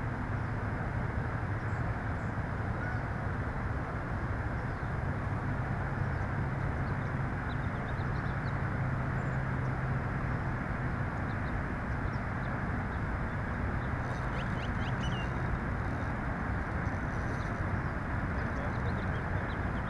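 Steady outdoor background rumble and hiss, even in level throughout, with faint small-bird chirps coming and going over it.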